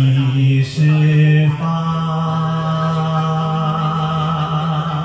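A singer's voice, in bel canto style and dry with no added reverb, sings a couple of short notes and then, about one and a half seconds in, holds one long note with vibrato.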